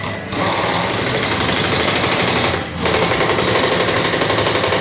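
Pneumatic impact wrench rattling in two bursts of about two seconds each, with a short break between them.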